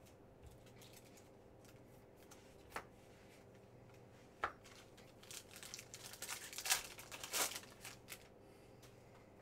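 Trading cards and plastic being handled on a table: two sharp taps, then a few seconds of rustling and scraping as a card is slid into a clear plastic holder.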